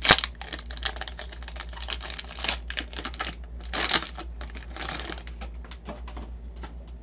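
Foil trading-card pack wrapper crinkling and tearing as it is opened, a run of rapid crackles with louder rustles at the start and about two and a half and four seconds in.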